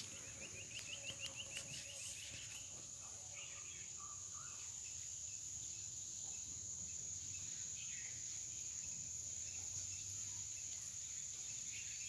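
Steady high-pitched trill of insects, unbroken throughout. In the first couple of seconds, a quick run of short rising chirps sounds over it, about five a second.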